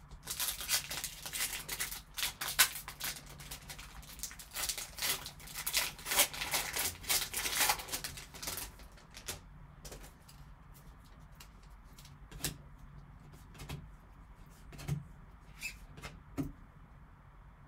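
Trading-card pack's foil wrapper crinkling and tearing open in gloved hands for about eight seconds, then scattered soft clicks as the cards are handled and shuffled.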